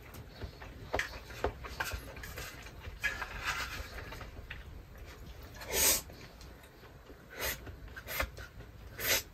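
A person eating hot rice with chopsticks: short puffs of breath blowing on the food, the strongest about six seconds in, with light clicks of chopsticks against a mess tin.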